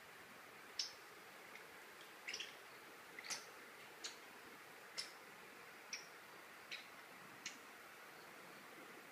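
Light, sharp clicks on a tile floor, roughly one a second, as a puppy pounces at a wand cat toy over faint room hiss.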